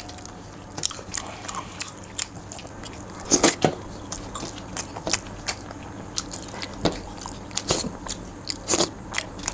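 Close-up eating sounds: chewing and biting into chicken curry and rice eaten by hand, with a scatter of short sharp clicks, the loudest a little over three seconds in and near the end.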